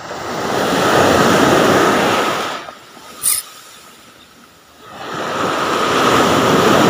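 Sea waves breaking and washing up a sandy beach: two surges of surf, each swelling and fading over two or three seconds, with a short high hiss between them.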